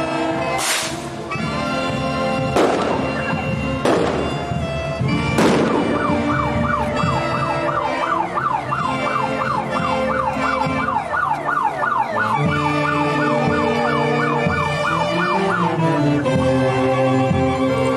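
A band's music with violins playing, with four sharp bangs in the first few seconds. From about six seconds in, a quick rising-and-falling warble repeats about twice a second for some ten seconds, then stops.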